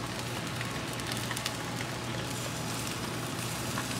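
Barbecue grill sizzling and crackling as chicken fat drips onto the heat, with small scattered pops over a low steady hum.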